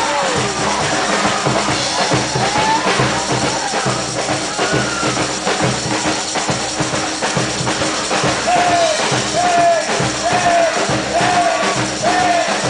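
Batucada samba percussion band playing live: a dense, steady drum groove. In the second half a short pitched note that rises and falls repeats about once a second over the drums.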